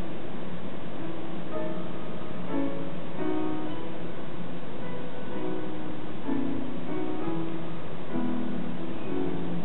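Instrumental background music: a melody of separate plucked-string notes, over a steady hiss.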